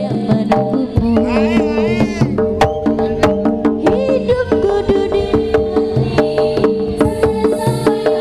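Live Javanese jaranan-bantengan gamelan music: kendang hand drums beating a fast, even rhythm of about four strokes a second over ringing metallophone and gong tones. A high, wavering melody line rises over it briefly about a second in.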